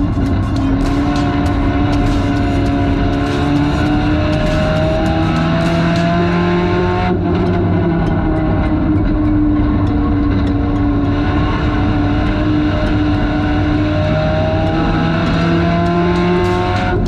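Front-wheel-drive race car's engine heard from inside the cockpit at racing speed. Its pitch rises for about seven seconds, dips in a brief lift, holds nearly steady, then climbs again near the end.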